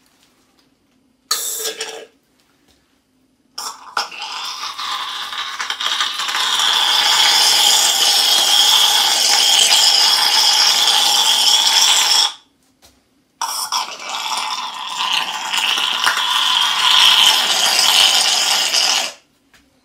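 Half-litre cream whipper siphon, charged with gas cartridges, dispensing foam: a short burst, then two long hissing sprays of several seconds each, with a break of about a second between them.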